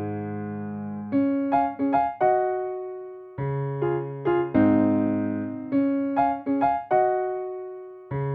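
Background music: a piano-like keyboard playing a slow melody over chords, each note struck and then fading.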